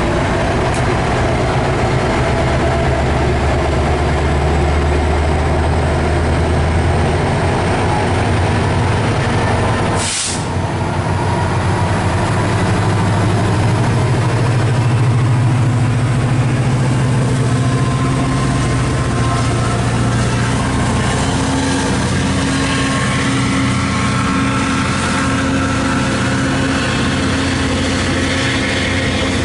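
Diesel engine of a MARC MP36PH-3C commuter locomotive running close by, a deep steady drone. Its pitch climbs and settles partway through as the engine throttles up. There is a brief click and a short dip in level about a third of the way in.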